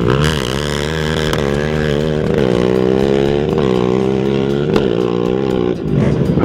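Two sport quad ATVs launching from a standing start at full throttle and accelerating hard. The engine note climbs and drops back at each upshift, about four times, then fades as they pull away.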